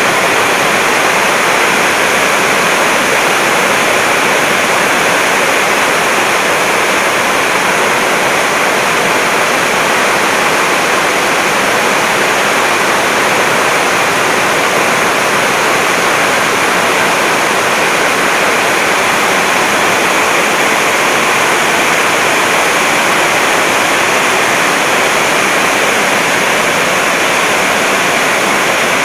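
Steady, loud rushing noise.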